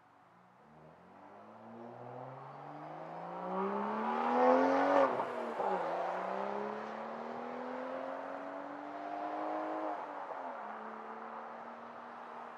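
A car engine accelerating hard, its revs climbing steadily to a gear change about five seconds in, climbing again through the next gear, then shifting up near ten seconds and holding a steady pitch.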